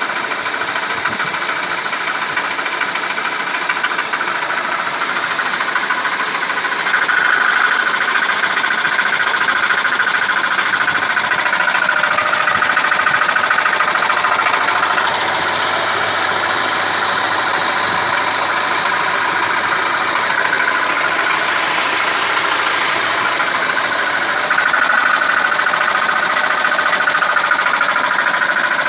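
Chrysler 2.4 L four-cylinder engine of a 2001 Dodge Caravan running with a knock, which the owner attributes to a cracked or loose drive plate (flexplate) between engine and transmission. It runs louder from about seven seconds in, and again for the last few seconds.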